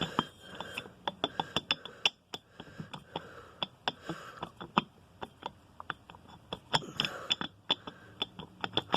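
Small metal lawn-tractor transmission parts being handled, clinking and tapping against each other and the work surface in many quick, irregular clicks.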